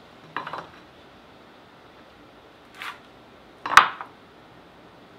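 A few short scrapes and rubs of a pencil and speed square on wooden fence pickets during marking, with one sharper knock a little under four seconds in.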